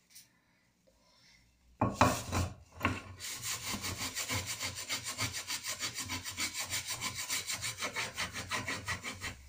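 Hand scrubbing of a greasy metal pan: after a near-silent start, a sharp scrape about two seconds in, then fast, regular back-and-forth scrubbing of about six strokes a second as burnt-on grease is worked off with toothpaste.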